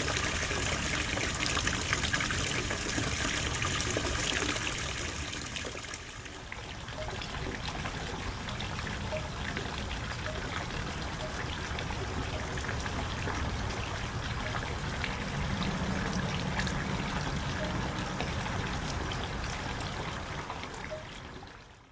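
Water running steadily in a backyard garden pond. It drops a little in level about six seconds in and fades out at the very end.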